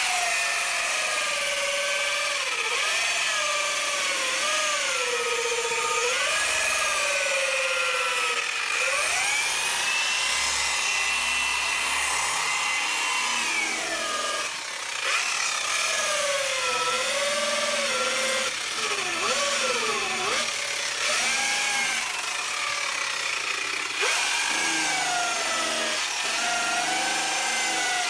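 Electric grinder fitted with a soft sanding pad, sanding the cured epoxy coat of a surfboard deck. The motor whine sags in pitch as the pad is pressed onto the board and climbs again as it eases off, over the hiss of the sandpaper. It holds a higher, steadier whine for a few seconds around the middle.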